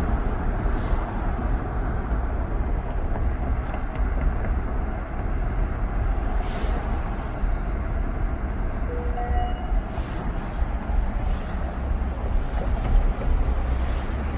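Road noise inside a moving vehicle's cabin: a steady low rumble of tyres and engine with wind hiss. A brief faint tone sounds about nine seconds in.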